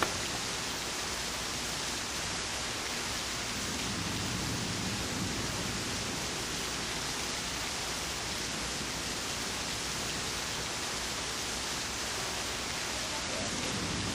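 A steady, even hiss of noise that holds the same level throughout, with no individual drops, crashes or tones.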